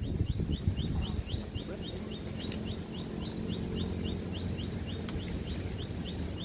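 A steady train of short, high chirps, each rising slightly, repeating about three or four times a second from a small calling animal, over a low outdoor rumble.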